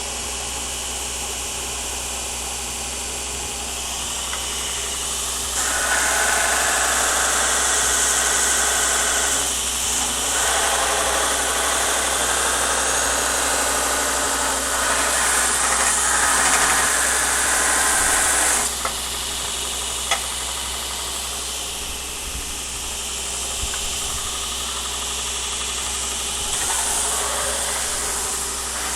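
Belt grinder running, with a steel knife blade pressed against the abrasive belt to clean up its surface. The grinding hiss is louder through two long passes in the middle, with a short break between them, and the motor runs more quietly before and after.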